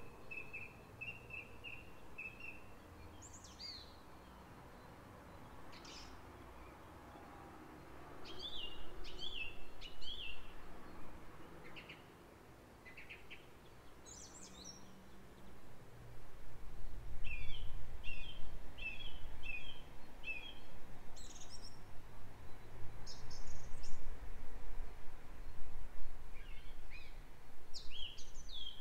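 Small songbirds chirping and calling in short runs of quick high notes, over wind gusting on the microphone as a low rumble that grows stronger about halfway through.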